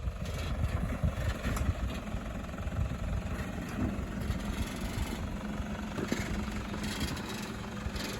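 Four-wheel-drive vehicle's engine running at low revs while driving slowly on a dirt track, with a few light knocks. A steady hum joins in about three seconds in.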